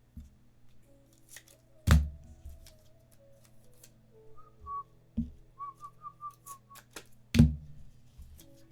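Two loud thumps, about two seconds in and again near the end, with a softer knock between them. In the middle comes a short run of whistled notes, over faint steady background music.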